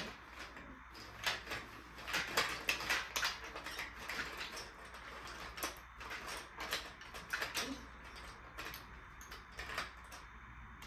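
Marbles rolling and clattering down a plastic marble-run track: a rapid, irregular run of clicks and clacks, busiest in the first few seconds and thinning out toward the end.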